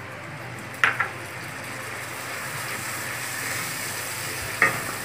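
Fried masala in a pan sizzling as a little water is stirred in, a steady sizzle that grows slightly louder, with the oil already separated from the spice paste. The spatula knocks sharply against the pan twice, about a second in and near the end.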